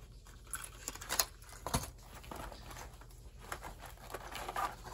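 Clear plastic lure packaging handled and set down, with a few light clicks and taps amid soft rustling, as hands rummage in a cloth bag.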